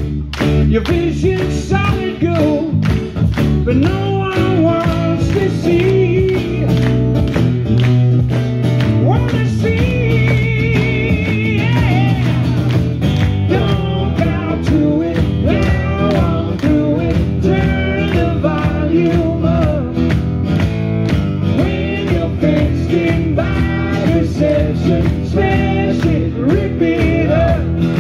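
Live stripped-back rock performance: guitars strummed to a steady beat under a male lead vocal, with a second male voice singing along.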